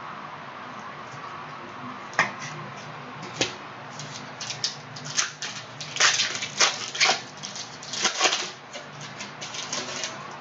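Trading cards and packs being handled during a card break: sharp clicks and short papery snaps and rustles of card stock, sparse at first and busiest about six to eight seconds in.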